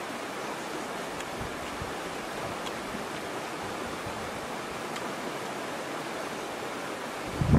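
Steady rush of a shallow, rocky river flowing over stones, with a brief low thump near the end.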